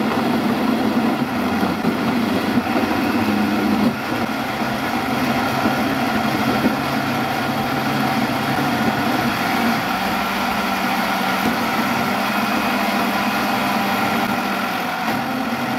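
SQ Professional countertop blender running steadily, its motor and blades churning a thick purée of tomatoes, peppers, onions and spices.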